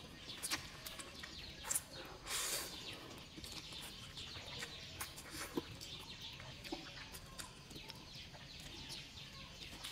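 Close mouth sounds of eating instant noodles: quiet chewing and smacking clicks, with a short slurp about two and a half seconds in. Chickens cluck faintly in the background.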